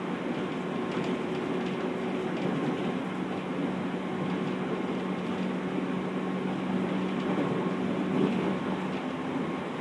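Interior running noise of a JR 211 series electric train, heard inside motor car MoHa 210: a steady rumble of wheels on rail with an even motor and gear hum, the pitch holding level as the train runs at a constant speed.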